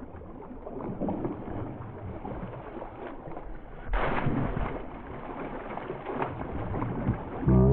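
Muddy pond water splashing and sloshing as a person wades and plunges a bamboo polo fish trap into it. There is a louder splash about four seconds in, and music comes in at the very end.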